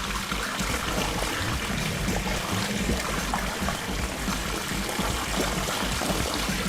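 Water trickling and pouring steadily, with background music.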